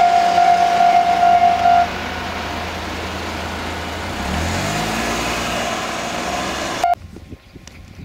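Japanese railway level-crossing warning alarm sounding a steady high tone, which stops about two seconds in. A car then drives across close by, its engine note rising and falling, and the sound cuts off abruptly near the end.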